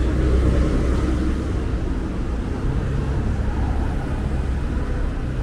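Street traffic at a busy city intersection: car engines running and passing, a steady low rumble with faint engine hum.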